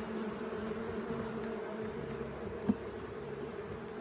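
Honeybees buzzing steadily around an open hive, a continuous hum, with one short knock about two-thirds of the way through.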